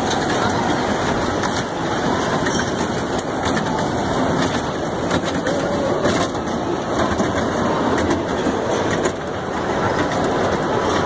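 Ride-on mall kiddie train rolling around its track: a steady, noisy rumble and rattle with scattered small clicks.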